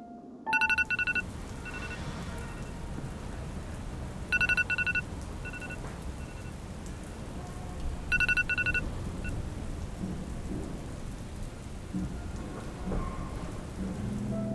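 An electronic alarm beeps in three bursts of quick beeps, each starting about every three and a half seconds, over a steady rushing noise like rain.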